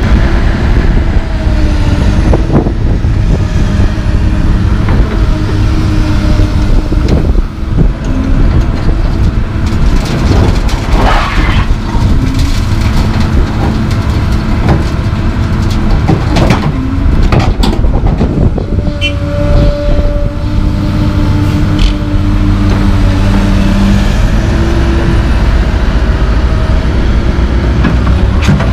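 Komatsu PC220LC hydraulic excavator's diesel engine running under load, with a hydraulic whine that steps up and down in pitch. Chunks of broken concrete clatter and bang into a steel dump truck box several times.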